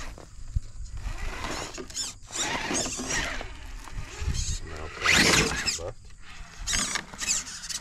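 Hobbywing Fusion SE 1800 brushless crawler motor whining in short bursts that rise and fall in pitch as the throttle is worked in small blips, with the truck's tires scrabbling on rock beneath.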